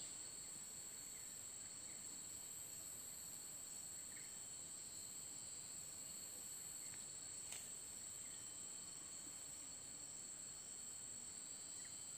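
Faint, steady, high-pitched insect chorus trilling without a break, with one soft click about halfway through.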